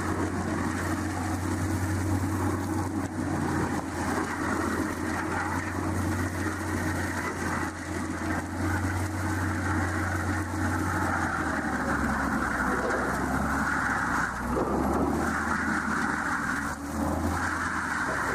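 An engine running steadily with a low drone. Its pitch drops and shifts about twelve seconds in.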